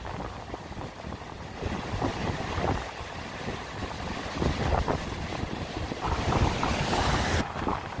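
Sea waves breaking and washing in as white foam, with strong wind buffeting the microphone and overpowering the surf. The hiss of the surf swells about a second and a half in and cuts off suddenly near the end.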